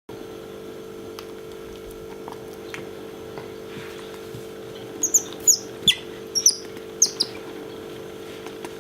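Asian small-clawed otter giving a quick run of about seven short, high squeaks, each sliding down in pitch, starting about five seconds in. These are its excited 'kyu-kyu' calls at a favourite orange towel held close. A steady low hum lies under them.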